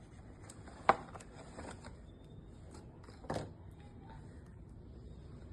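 Two sharp clicks, one about a second in and a softer one about three seconds in, over faint handling noise.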